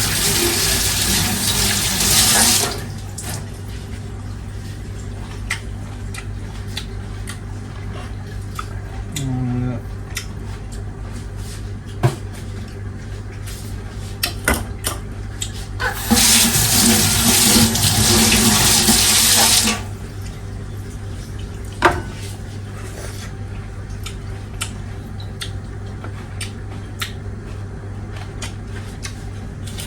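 Kitchen tap running into a sink for the first couple of seconds, then off, and again for about four seconds past the middle, while dishes are being washed. Scattered clicks and knocks come in between, over a steady low hum.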